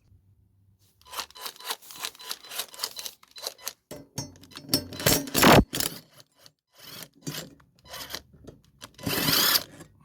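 Deck cleaning brush scrubbing the dirty underside of a lawnmower deck in quick back-and-forth strokes, starting about a second in, with a longer, harder scrape near the end.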